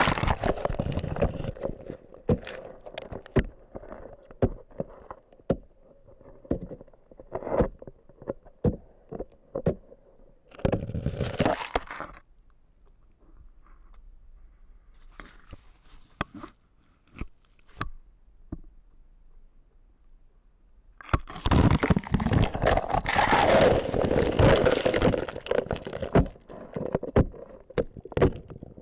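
Water sloshing and splashing in a hole cut through lake ice, with many sharp knocks from loose ice chunks bumping about. There are louder splashing bursts near the start and about ten seconds in, a quieter stretch, then several seconds of heavy splashing towards the end.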